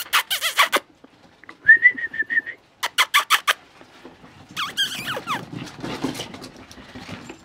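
Shetland sheepdog puppies making high-pitched yips, squeals and whines as they play-fight: quick runs of yaps at the start and about three seconds in, a held squeal about two seconds in, and falling whimpering yelps around five seconds.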